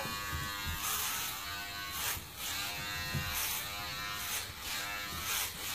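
Electric hair clippers buzzing steadily as they shave a head of hair, with a rasp each time the blade passes through the hair, every half second to a second.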